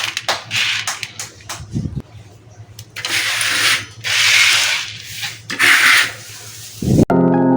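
Crafting noises: a run of clicks and knocks, then three hissing or rasping bursts of about a second each. Piano-like music comes in abruptly near the end.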